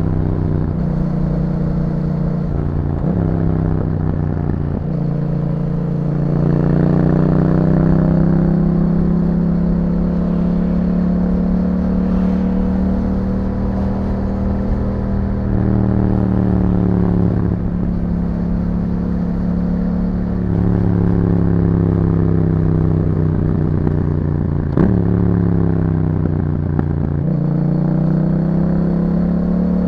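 2021 Yamaha MT-07's parallel-twin engine through an Akrapovic exhaust, ridden on the road. The engine note climbs and falls with the throttle and breaks off at gear changes several times. There is a sharp click about 25 seconds in.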